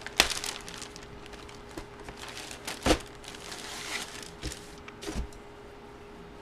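Trading cards and their packaging being handled: rustling and crinkling, with three sharp taps or clicks spread through it.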